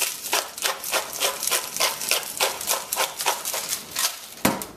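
Twist-top Kirkland black pepper grinder being turned by hand, grinding peppercorns in quick, even rasps, about three to four a second. A louder knock comes near the end.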